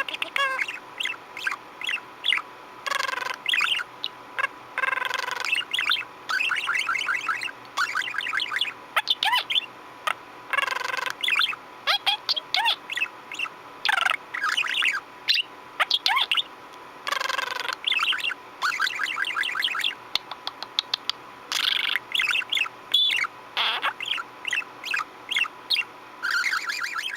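Budgerigar chattering: rapid warbles, short chirps and buzzy pulsed phrases in quick runs with brief pauses.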